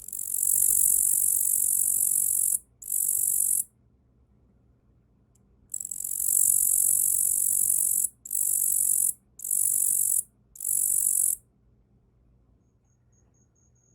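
Tettigonia orientalis katydid stridulating with its wings: a loud, high-pitched buzzing trill in bursts. A long burst and a short one, a pause of about two seconds, then a long burst followed by three shorter ones.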